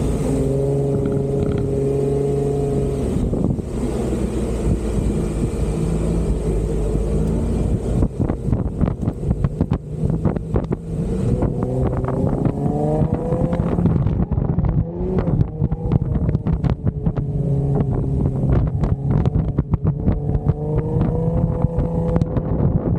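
Off-road vehicle engine running and revving, rising and falling in pitch as it is worked through the sand. From about eight seconds in, irregular crackling and buffeting run over it, typical of wind on the microphone.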